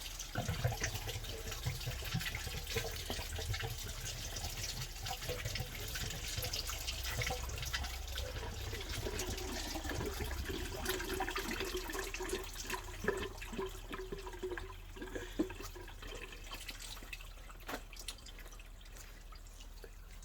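Coolant draining out of a Holden VN Commodore V8's radiator through a freshly disconnected hose: a steady pour of liquid that slowly eases off toward the end, emptying the radiator.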